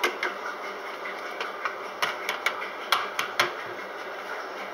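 Irregular light clicks and knocks, about a dozen over a few seconds, from a detergent container being tapped and handled to get out detergent that has clumped together.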